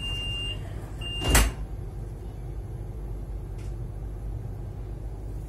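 Door-closing warning beeps of a Stadler ESh2 double-deck electric train, about one a second, cut off by a loud thud as the doors shut about a second in. The carriage's low steady rumble runs underneath.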